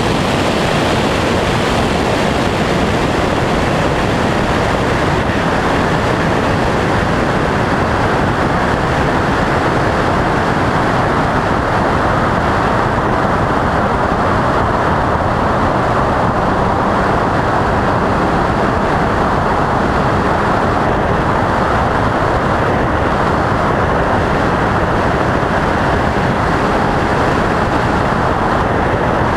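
Steady rush of wind and road noise from a Porsche GT3 RS Cup car driving at speed, picked up by a camera on its front hood.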